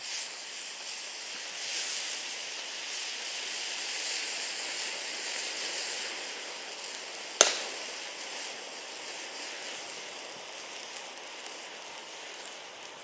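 About a kilogram of thermite burning fiercely in a cast iron skillet: a loud, steady hissing rush that sets in at the start, peaks in the first few seconds and slowly dies away. One sharp crack comes about seven seconds in, the loudest sound.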